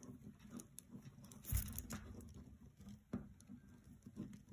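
Plastic pony beads on a beaded cuff clicking and rubbing faintly as string is pushed through them, with a few soft clicks and one louder one about a second and a half in.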